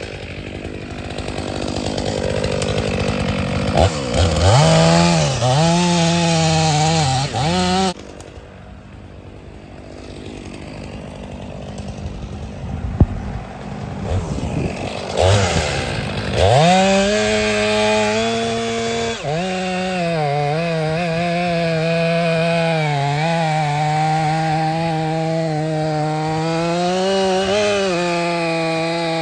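Chainsaw revving and cutting, its pitch dipping and recovering as the chain bites. It falls away about eight seconds in, with a single sharp click in the lull, then revs up again around sixteen seconds and keeps cutting.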